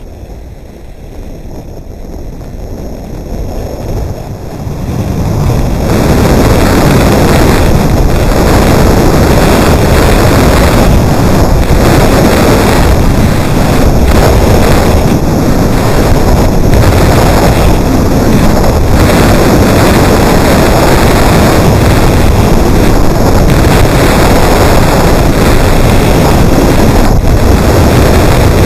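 Wind rushing over a Contour action camera's microphone during a downhill ski run, building over the first several seconds as speed picks up and then a loud, steady rush.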